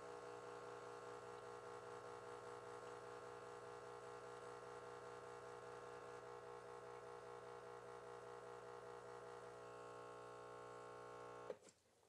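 Breville Barista Touch Impress espresso machine's vibratory pump humming steadily with a fast pulsing as it pulls a single espresso shot, then shutting off with a click near the end.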